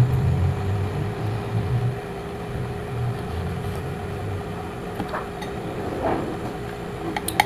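Eating sounds: chewing close to the microphone, with low rumbling for the first few seconds, then a few light clicks of a metal fork against a ceramic bowl from about five seconds in, over a steady faint hum.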